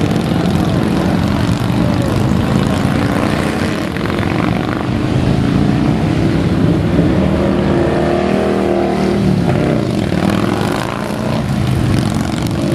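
A parade of motorcycles and a fire engine passing close by, their engines making a loud, steady, low drone. About midway the engine pitch bends as vehicles go past near the microphone.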